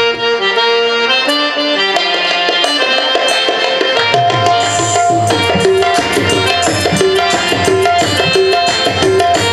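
Qawwali instrumental opening on harmoniums playing the melody, with tabla joining about four seconds in and keeping a steady rhythm.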